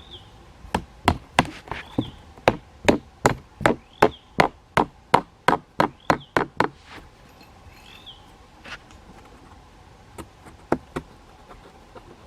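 A tool striking wood in quick blows, about three a second for some six seconds, then a few scattered knocks. A bird gives short rising-then-falling chirps every second or two throughout.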